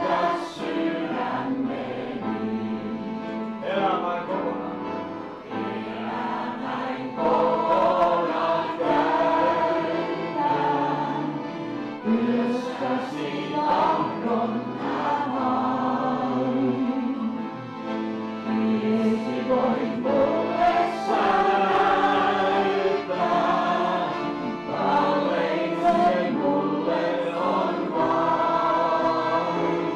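Piano accordion and upright piano playing a Christian song, with voices singing along.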